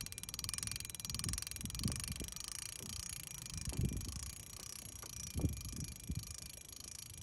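Night ambience of a steady, high, pulsing chirring, like a chorus of night insects. Scattered low thumps of wind or handling on the microphone come through over it.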